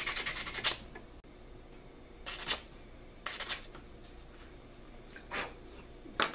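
Fine-grit sandpaper rubbed rapidly back and forth on a turkey wing bone, stopping within the first second. After it come four short, separate sanding scrapes as the bone's edges are smoothed.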